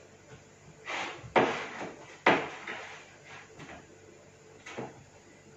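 Crushed biscuit-and-butter base being pressed by hand into a plastic cake mould: a few sharp knocks of the mould on the worktop, with a soft crumbly rustle. The two loudest knocks come about one and a half and two and a half seconds in.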